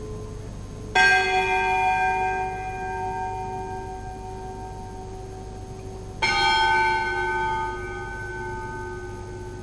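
Two bell strokes about five seconds apart, each struck sharply and then ringing on and fading slowly; the second stroke has a different set of tones from the first.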